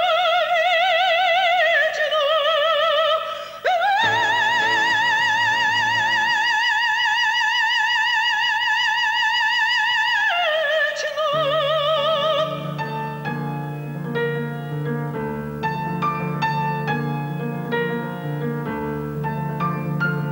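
A female operatic voice sings with wide vibrato, sustaining a long high note before breaking off about ten seconds in, accompanied by orchestra or piano. After the voice stops, piano music continues with struck notes over low held chords.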